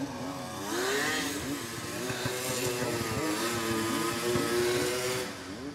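Snowmobile engine running as the sled comes down the trail toward the listener, its pitch rising and falling with the throttle and holding fairly steady for a couple of seconds in the middle.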